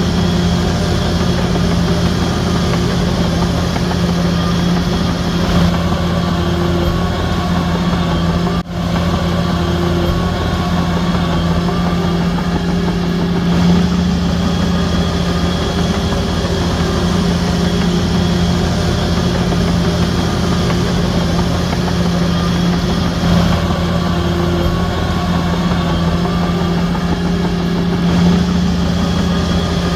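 Heavy diesel engine of a Shantui DH17C3 crawler bulldozer running steadily with a deep hum. The sound briefly cuts out about nine seconds in.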